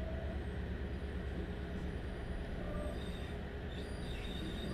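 Stadler Class 755 FLIRT bi-mode train heard from inside while running on diesel, its power-pack engines droning steadily over the rumble of the wheels on the rails. A faint high-pitched squeal comes in near the end.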